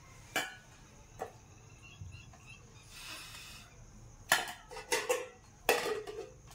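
Stainless steel tableware: a spoon clicking and scraping in a steel bowl of curry, then several loud ringing clanks near the end as a steel lid is set down on the bowl.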